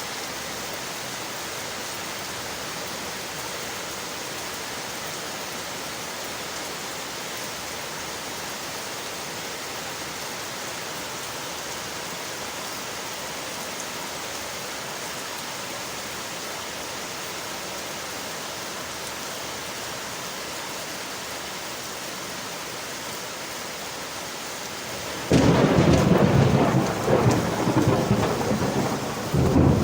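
Steady hiss of rain against windowpanes. About 25 seconds in, a sudden loud clap of thunder breaks in and rolls on as a rumble.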